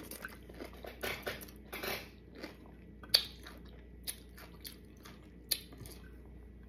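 Close-up chewing and biting of a taco, with irregular wet crunches in the first two seconds, then a few isolated sharp clicks.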